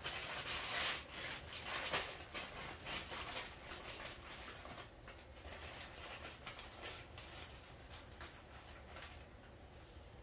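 Faint rustling and small clinks of hand handling as nuts and bolts are gathered. The noises die away after about five seconds.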